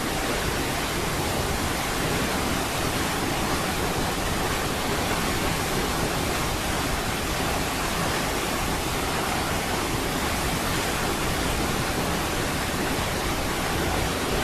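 Niagara Falls: the even, unbroken rush of a large waterfall, steady in level throughout.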